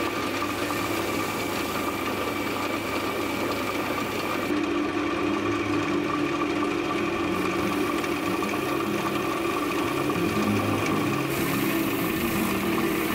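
Wood lathe motor running steadily with a small cherry bowl spinning on it, while a cloth pad is held against the turning wood to sand and finish it.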